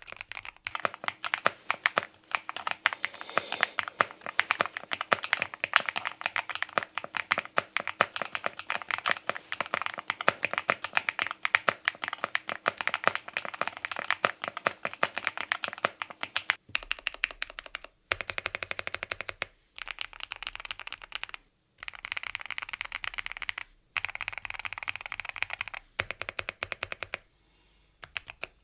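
Yunzii AL68 mechanical keyboard being typed on fast, a continuous stream of keystroke clacks. About two-thirds of the way through, the sound changes to bursts of typing broken by brief pauses, most likely a cut to another switch or recording.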